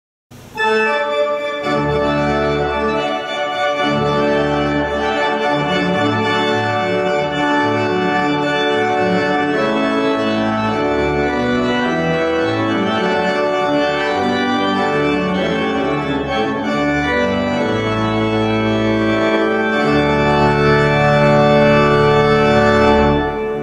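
Church organ playing sustained chords over deep pedal bass notes. It starts just after the beginning, swells slightly to a held final chord near the end, then drops away.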